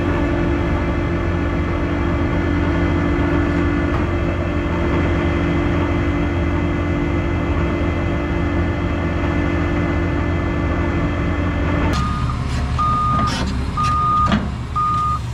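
A vehicle engine runs steadily. About twelve seconds in, the sound cuts to an intermittent backup alarm, beeping roughly once a second over engine noise, with a couple of sharp knocks.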